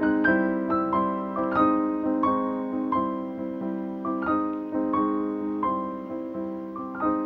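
Background piano music: a melody of struck notes, about two a second, each fading away, over steady lower notes.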